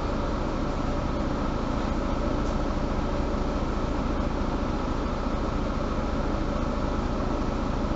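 Mercedes-Benz Citaro G (C2) Euro 5 articulated city bus running, heard from inside the passenger cabin: a steady engine and running hum with no sudden changes.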